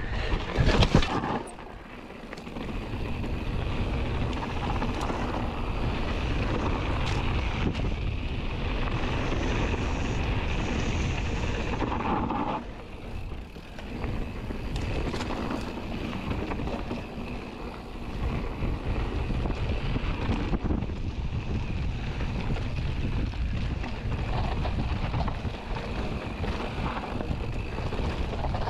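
Wind rushing over the microphone and the tyres of a Scott Ransom 900 Tuned mountain bike rolling over dirt singletrack on a descent, with a few sharp knocks from the bike over rough ground in the first second or two. The rush eases briefly about 2 s in and again around 13 s in.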